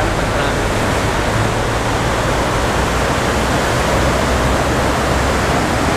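Fast mountain river rushing over rocks in white-water rapids: a loud, steady rush of water.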